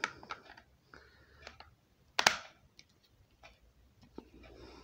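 Small clicks and scrapes of a long crosshead screwdriver turning a tiny screw in the base of a diecast model bus, with one sharper click a little past two seconds in.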